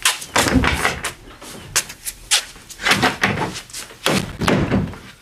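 A wooden door being pushed and banged: an irregular run of sharp knocks, with three heavier thuds in among them.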